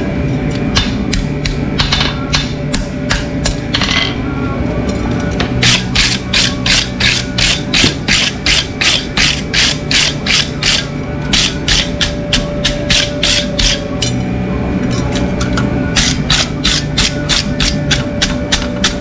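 Farrier's hand tools working a horse's hoof: quick, even repeated strokes, about two to three a second, in runs with short pauses. Radio music plays faintly underneath.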